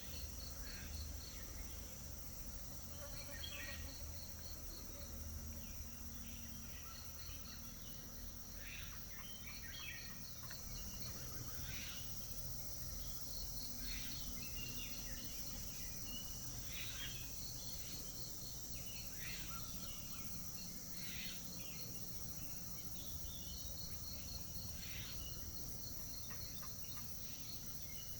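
Forest insects: a steady high-pitched hum overlaid with repeated trains of rapid, even chirps, like crickets. Short bird calls come and go throughout.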